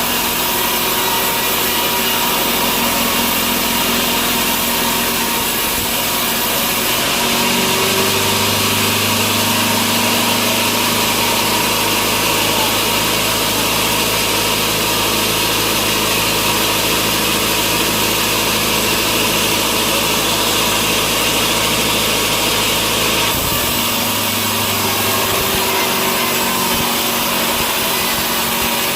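Sawmill saw running steadily while cutting wood, a loud even noise. A deeper hum comes in about seven seconds in and drops away about twenty-three seconds in.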